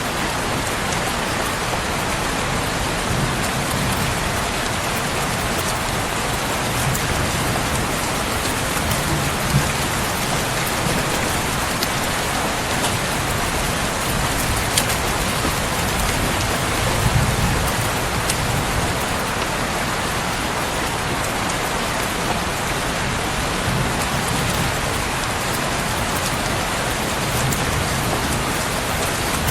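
Steady, heavy rain falling, a dense even hiss of drops, with a few sharp pops now and then and soft low rumbling swells a few times.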